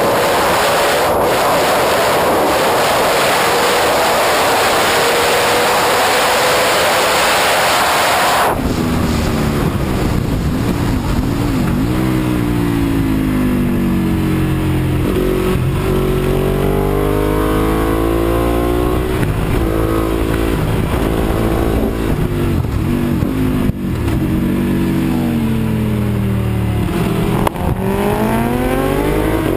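Ducati 1198R superbike's L-twin engine heard from a camera mounted on the bike at speed. For the first eight seconds or so a heavy wind roar covers the engine, then the engine comes through clearly, its pitch climbing under acceleration through the gears and dropping sharply on braking and downshifts, several times over.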